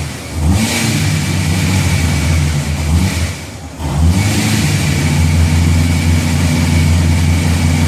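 Supercharged 454 cubic-inch LS V8 with an iron Dart block and ProCharger F2 being revved. The revs rise about half a second in and hold, drop away briefly near the middle, then climb again and stay high.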